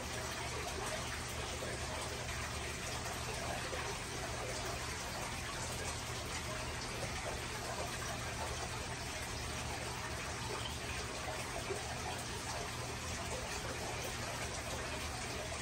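Steady rush and trickle of water circulating through an aquarium, with a low steady hum underneath.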